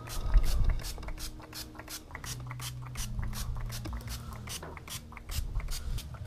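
Hand-pump trigger spray bottle spritzing soapy water in quick repeated squeezes, about four or five a second.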